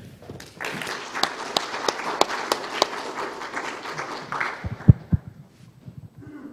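Audience applauding, starting under a second in and dying away after about four seconds. A few low thumps follow about five seconds in.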